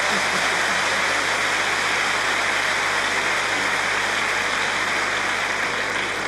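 Large theatre audience applauding steadily, many hands clapping at once, beginning to die down near the end.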